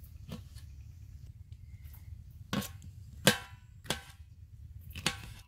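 Kitchen knife chopping green chillies on an aluminium pot lid, the blade striking the metal in about five sharp, irregularly spaced knocks. The loudest comes a little after three seconds in.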